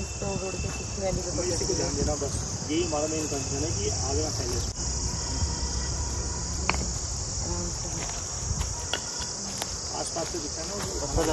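Steady high-pitched chorus of insects with a few sharp pops from a small wood campfire.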